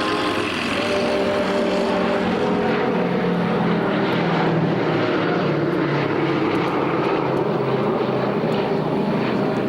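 Boeing B-17G Flying Fortress Sally B with its four Wright R-1820 Cyclone radial engines droning steadily in flight, the pitch dipping slightly a few seconds in.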